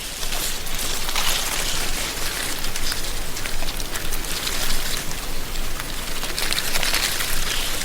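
Wind through a tree canopy, rustling and crackling dry autumn leaves in a steady hiss that swells in gusts about a second in and again near the end.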